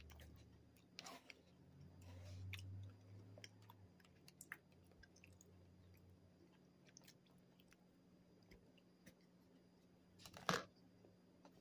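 Faint chewing of an old-fashioned cake donut, with small wet mouth clicks. About ten seconds in there is one short, louder rush of noise.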